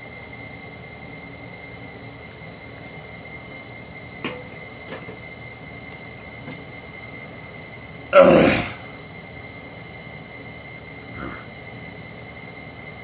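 A person sick with a cold coughs once, loudly, about eight seconds in, and gives a fainter cough about three seconds later. A steady hum with a faint high whine runs underneath, and there is a sharp click about four seconds in.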